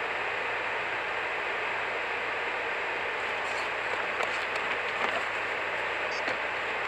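Steady hiss of wind-driven snow against a moving car, heard from inside the cabin, with a few faint ticks in the second half.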